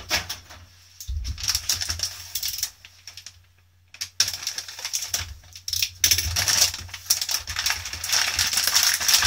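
Plastic packaging bag crinkling and rustling as it is handled and slit open with a box cutter, in a run of small crackly clicks with a brief quiet pause about three seconds in.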